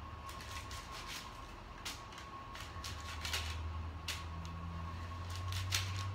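Slotted spatula scraping and tapping on a parchment-lined metal baking sheet while flipping baked cauliflower tortillas: a string of irregular light scrapes and clicks over a steady low hum.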